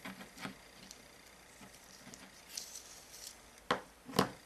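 Small handling noises of wires and parts being worked with the hands: light clicks and a brief rustle, then two sharper taps near the end.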